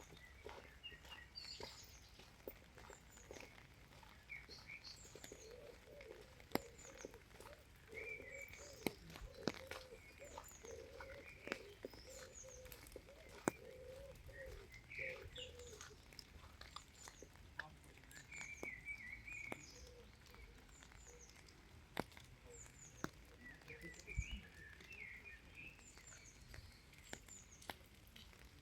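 Faint birdsong: many short chirps and twitters throughout, with a lower wavering call for several seconds in the first half and scattered sharp ticks.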